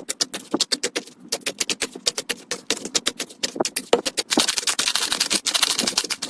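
Slime being pressed and worked by hand, giving a rapid run of crisp clicks and pops that thicken into a denser crackle about four seconds in.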